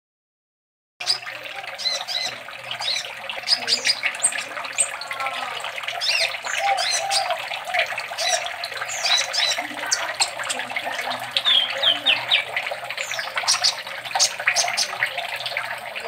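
Caged kolibri ninja sunbird singing hard, starting about a second in: a fast, unbroken run of high chirps, sharp whistled notes and rapid trills.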